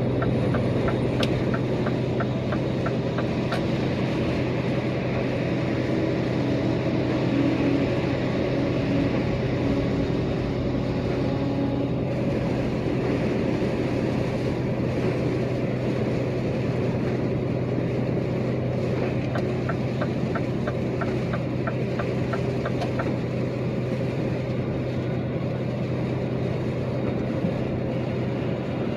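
Inside a truck cab at highway speed: a steady low engine drone over road and wind noise. A quick run of light ticks sounds for a few seconds at the start and again about twenty seconds in.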